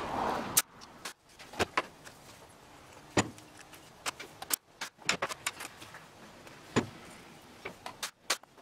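Short wooden boards being handled and set down on a workbench: a series of sharp knocks and clatters a second or so apart, after a brief rasping noise that cuts off about half a second in.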